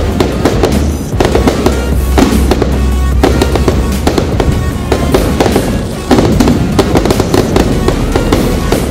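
Aerial firework shells bursting and crackling overhead: a dense run of bangs and crackles, with music playing underneath.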